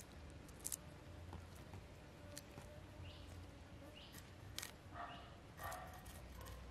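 Faint scraping of a knife over small fish, with a few sharp clicks, and short animal calls in the background about two-thirds of the way through.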